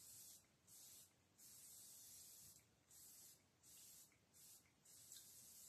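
Aerosol face-mist spray can hissing faintly in a series of short bursts, about seven, one lasting about a second, as water mist is sprayed onto the skin.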